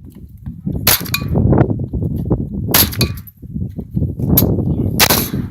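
AR-15 rifle fired three times, about two seconds apart, each shot a sharp crack with a short ringing tail.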